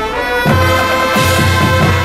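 Marching band brass playing sustained chords that swell in about half a second in, over held low notes.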